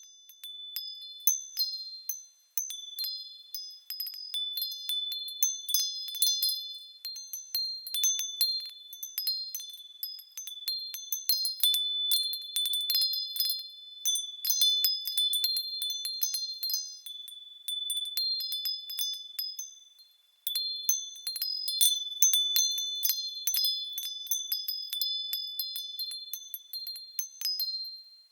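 Wind chimes ringing in the breeze: a handful of high notes struck over and over at irregular moments, each ringing on. The chiming dies away briefly about two and a half seconds in and again around twenty seconds, then picks up.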